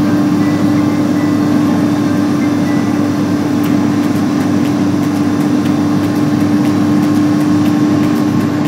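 Steady road and engine noise inside a vehicle cab cruising at highway speed, with a constant low hum running under the rushing noise.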